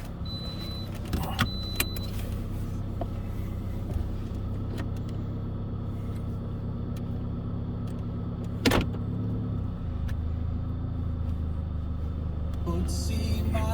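Car engine idling steadily, heard from inside the cabin, with a high electronic warning chime beeping a few times in the first two seconds, some small clicks, and one sharp knock about nine seconds in. The engine note changes about ten seconds in, and music begins near the end.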